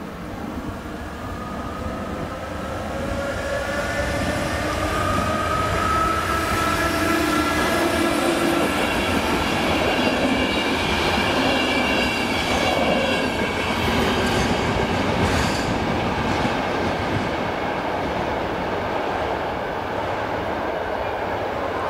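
Passenger train of coaches rolling past over a level crossing. It grows louder to a peak in the middle of the passage, with a whine rising slowly in pitch and a run of wheel clicks over the rail joints, then eases off as it moves away.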